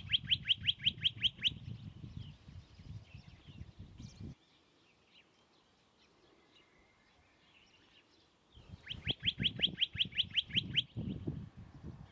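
Western rock nuthatch singing: two fast trills of rising notes, about seven a second, one at the start and one about nine seconds in, over a low rumble of background noise.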